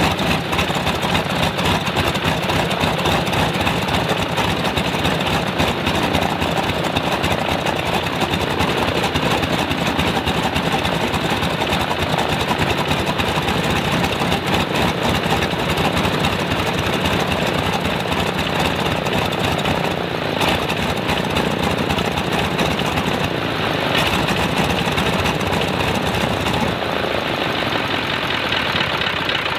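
Stinson L-1's Lycoming R-680 nine-cylinder radial engine running steadily with its propeller turning, during a test run with the magneto outputs crossed between the two distributors to trace a dead ignition side. Near the end the sound eases off and drops lower.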